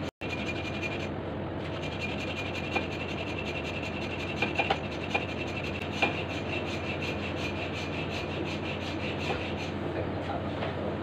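A hand saw cutting back and forth through a solid block, a steady rasping stroke after stroke, with a few sharper clicks about halfway through.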